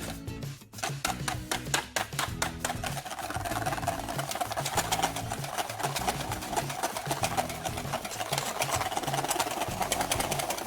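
Fast, dense clicking over background music with a stepping bass line; a steady midrange hum joins about three seconds in.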